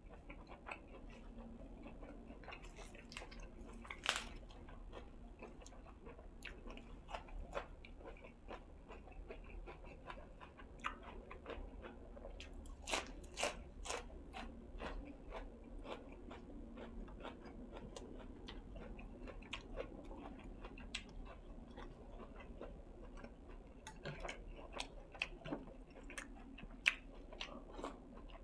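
Close-miked chewing and biting, with many small crisp crunches and mouth clicks, one sharper crunch about four seconds in.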